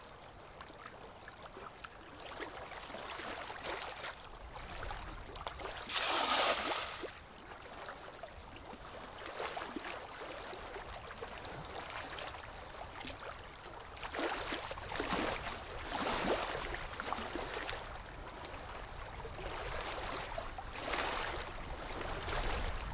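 River water gurgling and lapping around a small wooden boat. There is one louder splash about six seconds in, and several softer surges of sloshing later.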